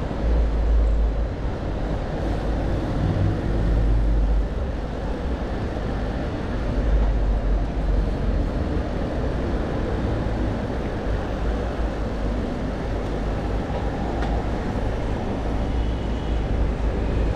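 Riding noise on a bicycle in city traffic: a steady low rumble of wind on the camera microphone and tyres on the road, with motor traffic passing alongside.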